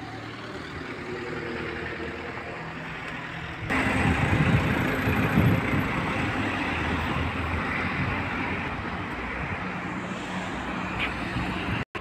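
City street traffic: car engines and tyre noise from passing vehicles over a steady road hum. The level jumps suddenly about four seconds in and cuts off abruptly just before the end.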